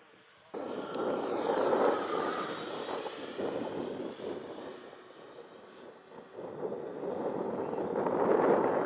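FMS Avanti electric ducted-fan RC jet flying past: a rushing whoosh of the fan with a thin whine above it. It cuts in suddenly about half a second in, fades in the middle, then builds again as the jet comes round on another pass.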